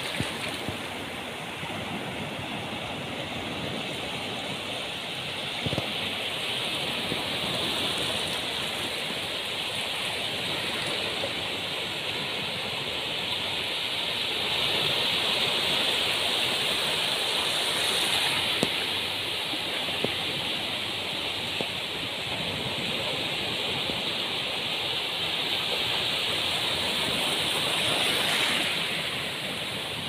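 Ocean waves washing onto a beach: a steady rush of surf that swells about halfway through and again shortly before the end, then eases off.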